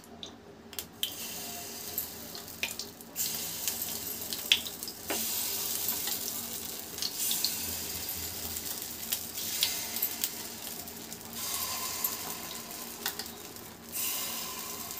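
Semolina vegetable batter sizzling in hot oil as it is spooned into the cavities of a non-stick appe pan. The hiss steps up each time a new spoonful goes in, with a few light clicks of the steel spoon against the pan.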